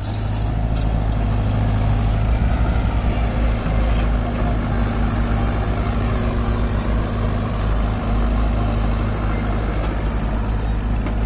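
Hitachi tracked excavator's diesel engine running steadily with a low drone while the machine digs soil.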